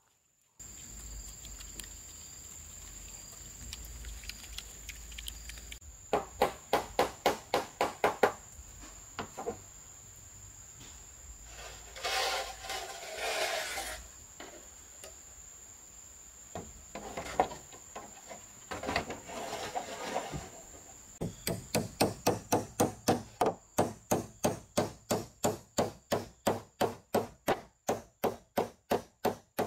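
Hammer driving roofing nails through a corrugated roof sheet into the wooden frame beneath. It comes as quick runs of knocks, about three to four a second, with a noisier scraping stretch in between, over a steady high cricket trill.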